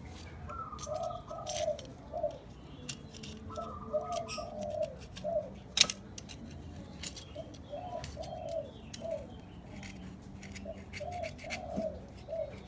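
A dove cooing in four repeated phrases of several low notes each, spaced about three and a half seconds apart. Scattered sharp clicks run alongside, with one loud click about six seconds in.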